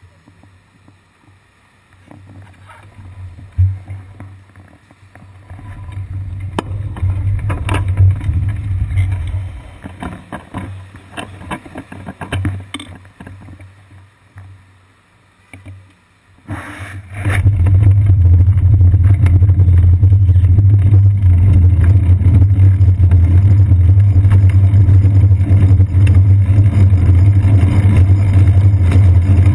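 Faint, uneven city traffic sound while the bicycle stands at a crossing. About halfway through, a loud, steady low rumble of wind and road vibration on the seat-post-mounted GoPro Hero 2 sets in as the bike rides off.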